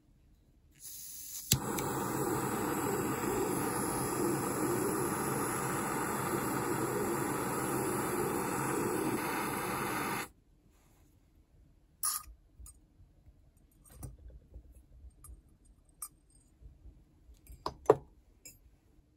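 Small gas torch releasing gas with a soft hiss, clicking alight and burning steadily for about nine seconds while annealing brass wire, then shut off abruptly. Afterwards a few light clicks and taps of the brass wire on the soldering brick.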